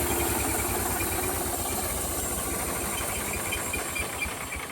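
Gas engine of a home-made bandsaw mill running steadily, then slowing and winding down near the end.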